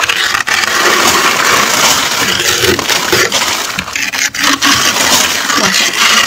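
Metal fork scraping and crunching through thick, fluffy freezer frost, a continuous loud scrape that briefly lets up a couple of times.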